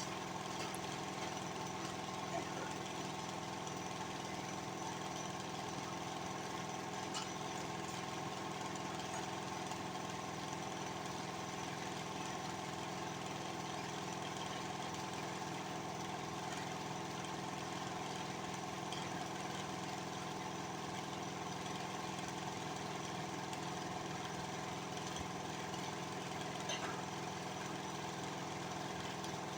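Workshop air compressor running steadily as it pumps up to pressure, an unchanging machine hum. A few faint knocks sound over it.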